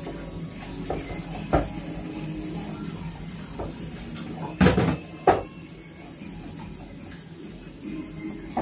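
Washing up by hand at a kitchen sink: tap water running steadily, with dishes and cups knocking against each other and the sink. The two loudest knocks come about halfway through, close together.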